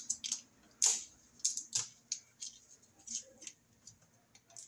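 Irregular sharp clicks and ticks of a screwdriver and stiff electrical wires knocking and scraping against a metal breaker panel enclosure while a wire splice is pulled out, the loudest about a second in.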